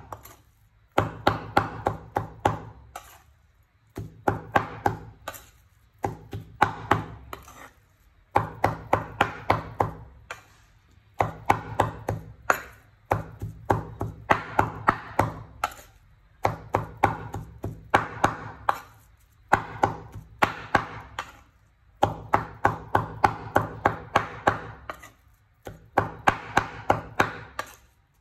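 Cleaver mincing raw pork on a wooden cutting board: quick runs of chops at about six a second, each run lasting a second or so, with short pauses between runs.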